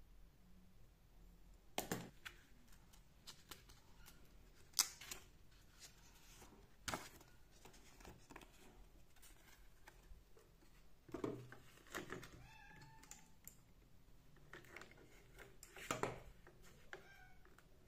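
A house cat meows briefly about two-thirds of the way through, a call the owner takes for hunger. Around it come scattered sharp clicks, taps and paper rustles as a sticky note is handled and clipped onto a pegboard, the loudest about five seconds in.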